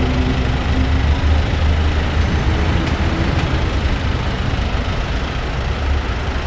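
A motor vehicle's engine idling and running at low revs, a steady low rumble over street noise.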